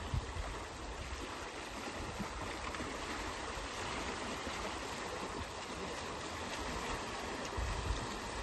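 Brahmaputra floodwater rushing by, a steady, even wash of flowing water.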